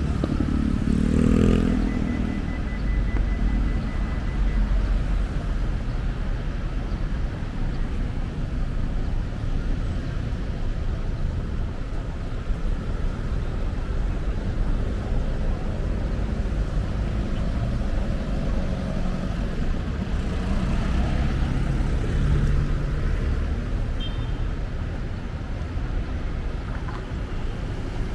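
Steady road traffic on a busy city avenue: a continuous rumble of car engines and tyres, with one vehicle's engine loudest about a second in.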